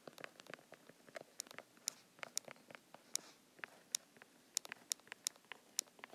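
Stylus tip ticking and tapping on a tablet's glass screen during handwriting: a quick, irregular run of sharp little clicks.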